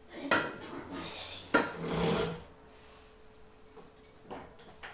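Domyos home multi-gym being worked: the lat pulldown bar is pulled down on its cable, with rubbing and two sharp knocks from the machine, about a third of a second and a second and a half in.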